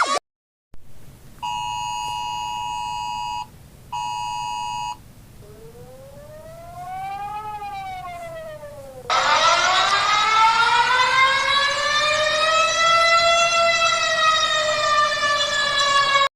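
Homemade Emergency Alert System alarm. Two steady two-tone attention beeps come first, about two seconds and then one second long. A fainter siren tone rises and falls. From about nine seconds a loud siren wail rises slowly and sinks again, over a low steady hum.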